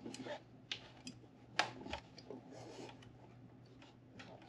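Faint rubbing and scattered clicks as a ribbed serpentine belt is worked by hand over an idler pulley, with one sharper click about one and a half seconds in.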